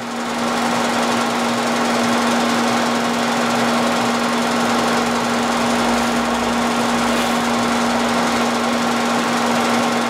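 Vertical milling machine's end mill cutting a keyway into a steel shaft: a steady, rough cutting noise over a constant hum. It is taking a light pass of about five thousandths, the table fed across by hand.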